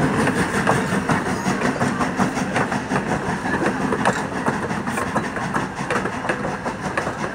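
Steam-hauled passenger train rolling past, its coaches behind Strasburg Rail Road steam locomotive No. 90: a steady rumble with irregular clicks and clacks of the coach wheels over the rail joints, fading slightly as the train moves away.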